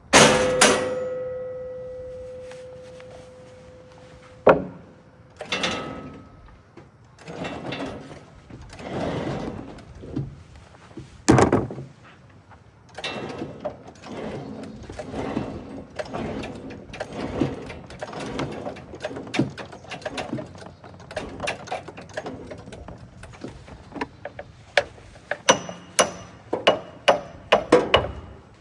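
A hard metal strike that rings for a few seconds, then scattered knocks and clanks, and near the end a run of quick hammer blows, about three a second.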